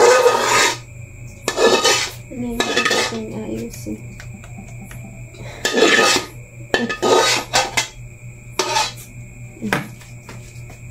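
Metal spoon scraping thick maja blanca out of a cooking pot into stainless steel trays: about half a dozen short scrapes and clanks of metal on metal, spread unevenly.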